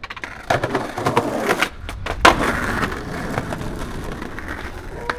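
Skateboard wheels rolling over a concrete sidewalk, with one sharp clack of the board about two seconds in.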